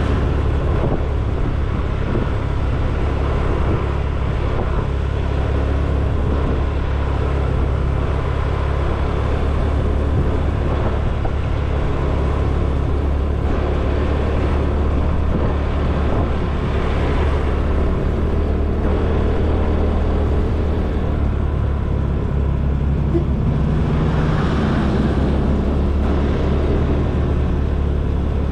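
Motor scooter being ridden along: a steady low rumble of engine and road, swelling briefly twice in the second half.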